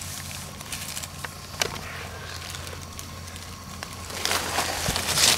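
Rustling and crunching in dry leaf litter underfoot, with a few sharp crackles of dry leaves and twigs and a louder, longer rustle near the end.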